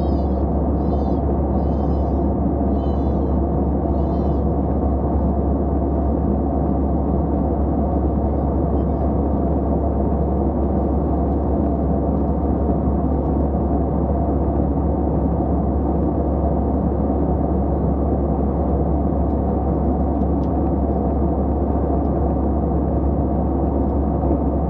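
Steady cabin noise of a jet airliner at cruising altitude: an even, unchanging rumble with a strong low hum. A few short high chirps, about one a second, sound over the first few seconds.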